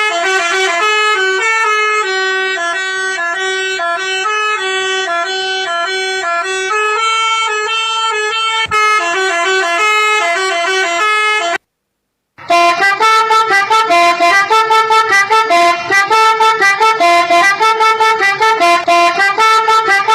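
Toy pianika playing a telolet bus-horn tune in horn-like multi-note tones. A flowing run of held notes breaks off briefly about halfway, then quick staccato notes follow.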